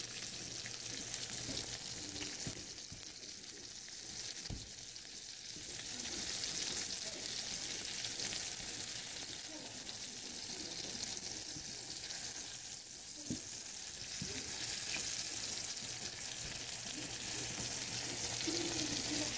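Bacon-wrapped meatloaf patties frying in hot grease in a skillet, a steady crackling sizzle. There are a couple of light knocks, about four seconds in and again about two-thirds through.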